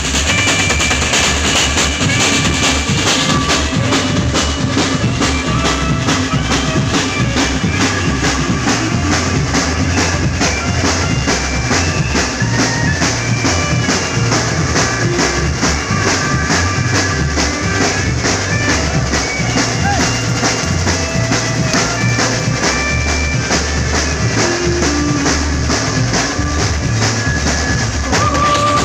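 A band playing an instrumental passage of a pop song with no singing. A drum kit keeps a steady beat on bass drum and snare over a bass line, with held melody notes above.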